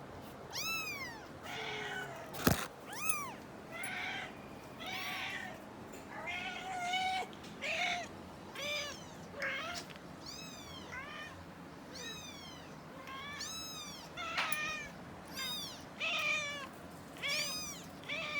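Four-week-old kittens meowing: a steady series of short, high-pitched mews, about one a second. A single sharp knock about two and a half seconds in.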